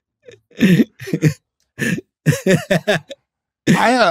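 Men laughing in a run of short bursts, ending in a longer laugh near the end.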